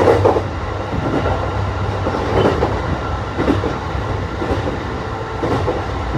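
Running noise heard inside a JR East E531 series electric train: a steady low rumble from wheels and rails, with a short knock about once a second.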